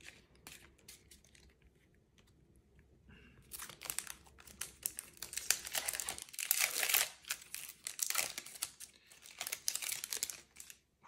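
Yu-Gi-Oh booster pack's foil wrapper being crinkled and torn open by hand, a dense run of crackling that starts about three seconds in and stops just before the end.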